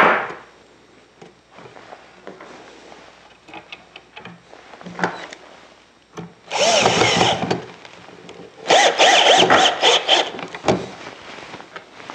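14.4 V cordless drill-driver driving pocket-hole screws into a wooden chair frame. One run of about a second, then a longer run broken into several quick stop-start pulses. A sharp knock sounds right at the start.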